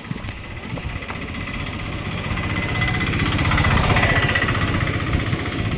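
A small engine running with a rapid, even beat, getting louder toward the middle and easing off near the end.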